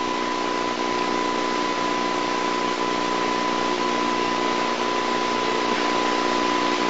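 Steady hiss with a constant high tone and a low hum underneath, the background noise of an analog videotape soundtrack; no footsteps or other events stand out.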